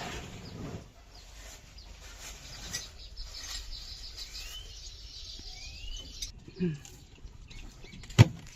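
Faint bird chirps, a few short arched calls, with a single sharp knock near the end.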